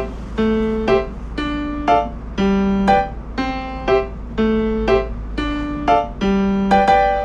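Background music: a keyboard with a piano sound plays a simple repeating figure, about one long note followed by a short higher note each second, over a steady low rumble.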